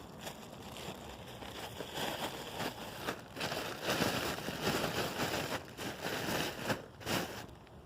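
Close rustling and crackling handling noise with scattered clicks, getting louder about two seconds in.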